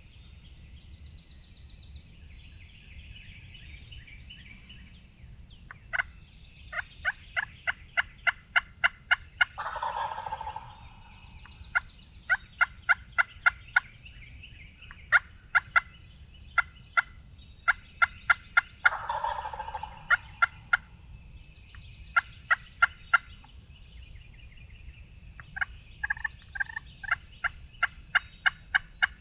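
Wild turkey gobbler gobbling from the roost, two rattling gobbles about nine seconds apart. Between them come repeated runs of quick sharp clicks, several a second, with faint songbird calls.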